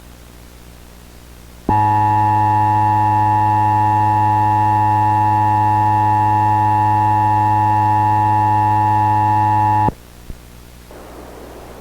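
Emergency Alert System two-tone attention signal (the 853 and 960 Hz pair), a steady electronic alarm tone that starts abruptly about two seconds in, holds for about eight seconds and cuts off sharply. It announces that an EAS alert or test message follows. Faint hiss before and after the tone.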